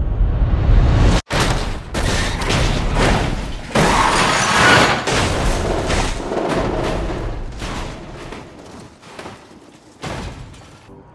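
Cinematic crash sound effects: a heavy low rumble, a sudden cut about a second in, then a long noisy crashing clatter that swells and fades over several seconds, under music.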